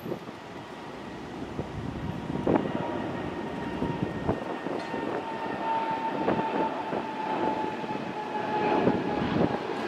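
Jet airliner's engines running, a steady whine over a broad rumble that grows gradually louder, with wind buffeting the microphone.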